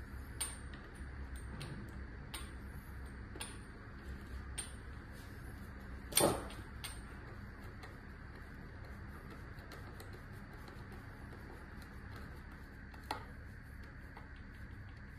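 Small metallic clicks and ticks of a hand driver working the screws into an e-bike hub motor's side cover, with one louder metal clatter about six seconds in and a single click near the end.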